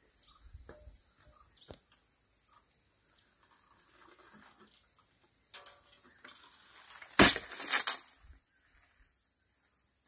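Shattered windshield glass of a JCB 3DX backhoe loader crunching and crackling for about a second, some seven seconds in, as broken pieces are pulled from the cab frame. Earlier there are a couple of sharp clicks, all over a steady high insect buzz.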